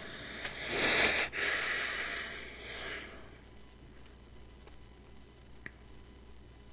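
A man breathing out noisily through his nose close to the microphone, one long sniff-like breath starting about a second in and lasting about two seconds, with a small click partway through; after it only faint room hiss.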